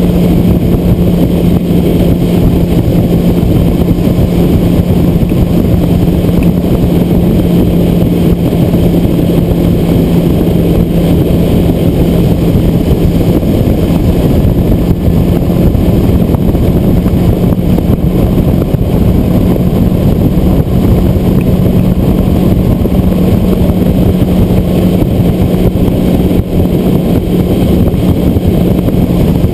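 Skeeter WX2000T bass boat under way at a steady speed, its Yamaha F150 four-stroke outboard holding a constant drone under a loud, even rush of wind and water.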